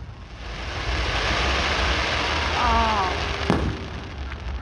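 Fireworks crackling overhead: a dense, rain-like crackle that swells and then fades over about three seconds, with a single sharp bang about three and a half seconds in.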